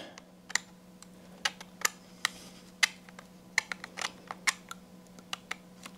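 Small hardware being worked by hand: scattered irregular clicks and taps as nylon lock nuts are fitted onto the battery-tray screws under an RC truck chassis. A faint steady hum lies underneath.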